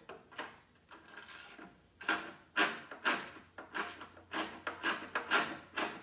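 Bolts on a dirt bike's rear fender being worked loose with a hand tool: a run of short, rhythmic clicking strokes, about two a second, starting about two seconds in.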